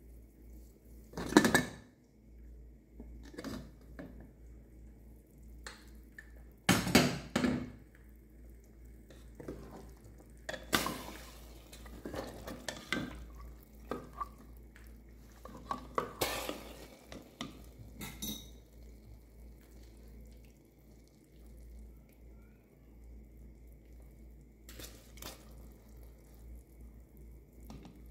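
Metal utensils knocking and scraping in a pressure cooker pot as cooked mutton is stirred with a spatula and the lid is handled: a loud clank about a second and a half in, more clanks and scrapes over the next fifteen seconds, then only a few light knocks near the end.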